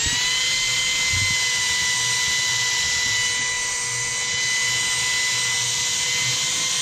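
Ryobi belt sander running at full speed against an MDF panel, a steady high whine over the hiss of the belt on the wood. The pitch levels off right at the start as the motor reaches speed.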